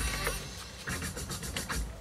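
Music with a heavy bass and a percussive beat.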